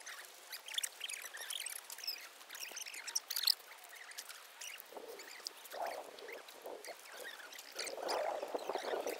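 River water splashing and lapping, with louder splashes about five seconds in and again near the end.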